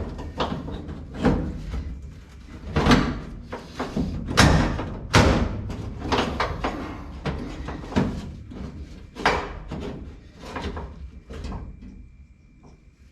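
Irregular metal knocks and clanks, about a dozen, as a broken window regulator is beaten loose inside a 1955 Chevrolet 210 door. The blows fade toward the end.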